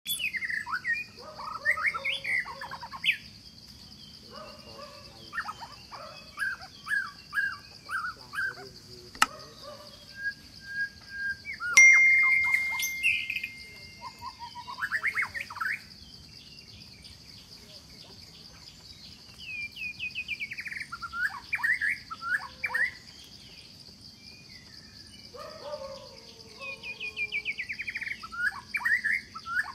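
Birds chirping and calling in bursts of short rising and falling notes, with one held whistle about twelve seconds in, over a steady high drone and a couple of sharp clicks.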